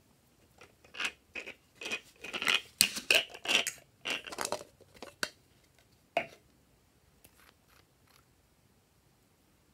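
Plastic strawberry-shaped shaker bottle shaken and squeezed over slime, its glitter pouring out in a run of crisp, crackly shakes, loudest in the middle. A single sharp click follows about six seconds in.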